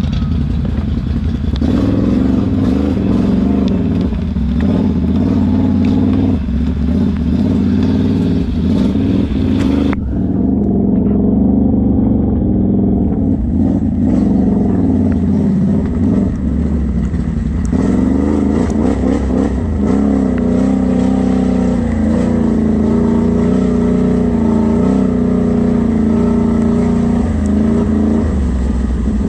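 ATV engine running under way, its pitch rising and falling with the throttle as it rides a rough trail. The sound turns duller about ten seconds in.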